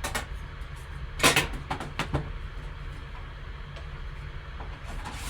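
Card packaging being handled on a table: a few sharp clicks and knocks, the loudest about a second in, over a low steady hum.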